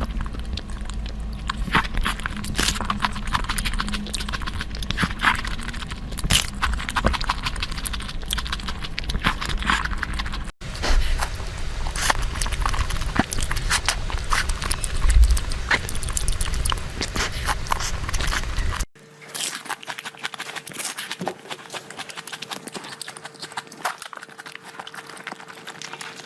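Close-miked chewing and wet mouth sounds of a person eating, a dense run of irregular smacks and clicks. It breaks off abruptly twice, and after the second break, about two-thirds through, it is quieter and thinner with a faint steady hum underneath.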